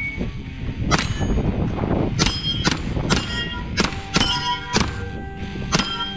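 Pistol-caliber carbine firing a quick string of shots, about eight, at steel targets. Most shots are followed by the clang and ringing of a steel plate being hit.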